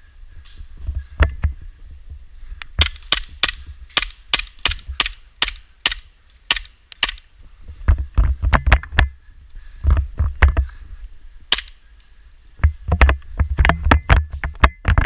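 Airsoft pistols firing sharp cracking shots in quick strings of about three a second, broken by short pauses, with dull low thuds underneath.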